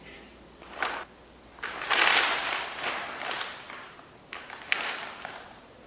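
Plastic mailer bag and packaging crinkling and rustling as the parcels are handled, in bursts: a short one about a second in, a longer, louder one from about two to three and a half seconds, and a few shorter ones near the end.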